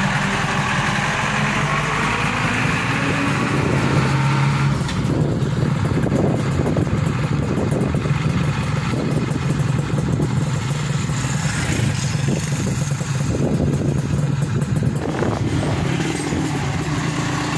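Mitsubishi Colt Diesel truck's diesel engine running steadily as the truck drives along, hauling a combine harvester.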